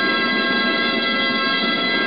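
Gralles, the Catalan double-reed shawms that accompany human towers, playing a loud, reedy held note without a break.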